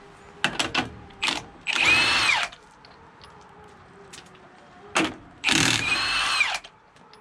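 Impact wrench spinning lug nuts off a truck wheel in two short runs, each with a whine that speeds up and falls away, the nuts already broken loose. A few clicks of metal on metal come before the first run.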